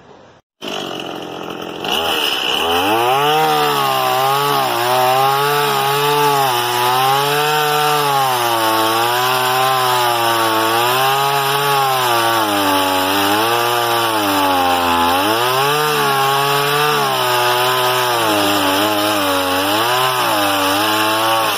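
Stihl MS 180 two-stroke chainsaw revving up about two seconds in, then cutting through a log. Its engine pitch dips and recovers over and over as the chain bites into the wood.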